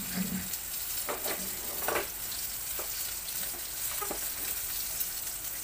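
Whole fish sizzling as it fries in oil in a pan, a steady hiss, with a few short clicks and scrapes as a metal utensil touches the pan to turn it.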